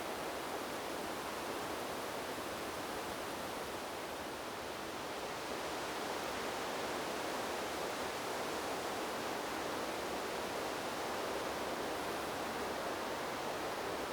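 Wind blowing through leaves: a steady rustling hiss that dips slightly and then grows a little louder about halfway through.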